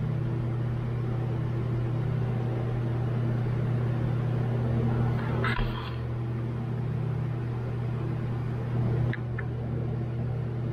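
A steady low machine hum with a constant pitch and level. About halfway there is a brief scrape with a dull knock, and near the end a couple of light clicks.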